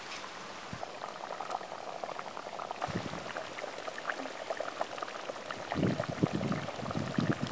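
Fish curry bubbling in a clay pot over a wood fire: many small pops and ticks. Low bumps come in near the end.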